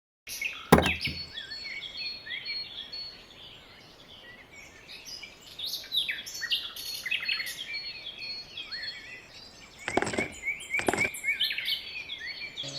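Many small birds chirping and calling over one another in quick short notes. A sharp click about a second in, the loudest sound here, and two more clicks near the end.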